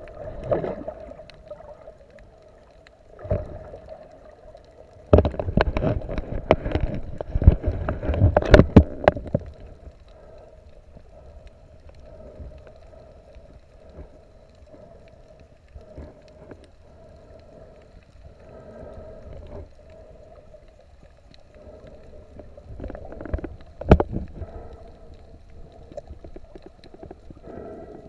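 Water sloshing and splashing heard underwater, with muffled knocks, loudest for a few seconds from about five seconds in and again in a short burst near the end, over a steady low hum.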